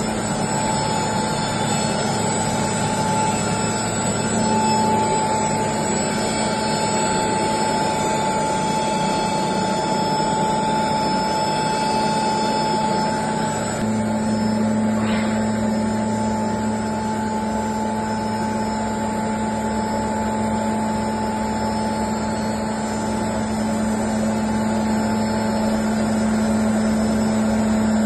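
BSP-350 air classifier mill running steadily while grinding soft stone into powder: a constant machine hum with a higher steady whine over it.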